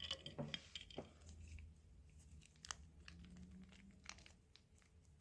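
Near silence with faint handling noises: scattered small clicks and light crinkling as small plastic items are handled, a few sharper ticks about a third and halfway through.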